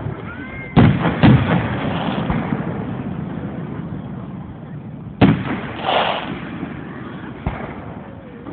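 Aerial firework shells bursting with loud booms, each fading slowly: two close together about a second in, another about five seconds in, and a smaller one near the end. A brief hiss comes about six seconds in.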